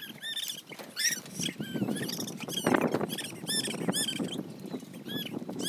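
Rapid, high squeaky peeping calls from small birds, several a second, over scuffing footsteps on straw-covered ground.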